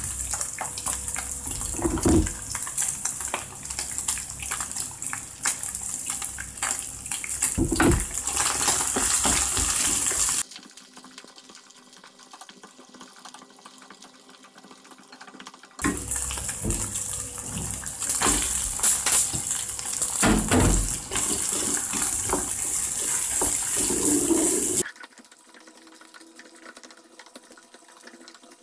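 Ground pork and chopped leek sizzling in a nonstick frying pan, with a wooden spatula scraping and knocking against the pan as it is stirred. The sizzle cuts out about ten seconds in and again near the end, leaving only a faint steady hum.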